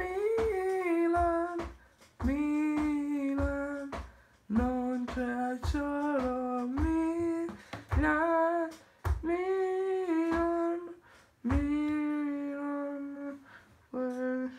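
A voice singing a wordless tune in long held notes, in several short phrases of a second or two each with brief breaks between them.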